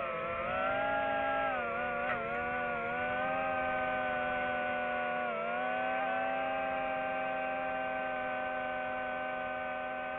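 DJI FPV drone's motors and propellers whining steadily, the pitch dipping briefly twice as the throttle eases and then holding level while it hovers.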